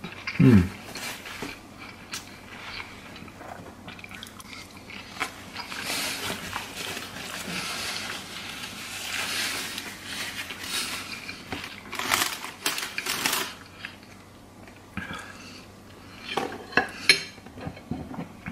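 A metal fork scraping and clinking on a china plate while fried eggs are cut and eaten, with sharp clinks about twelve seconds in and again near the end. A brief low falling hum of a voice comes right at the start.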